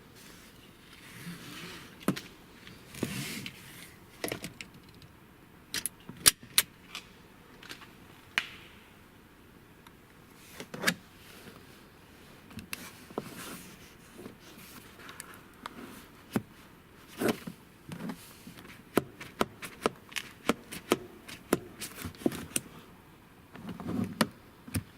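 Small hard parts being handled: a run of irregular sharp clicks, taps and light rattles, bunched into quick clusters in the later part, with soft rustling between them.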